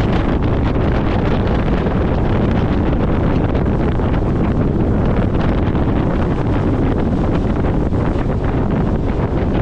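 Loud, steady wind noise buffeting the microphone, with water rushing past the hull of a power catamaran running fast.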